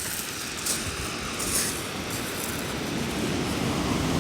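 Sea waves rushing up the beach, a steady wash of surf that swells a little louder and deeper toward the end as a wave comes in.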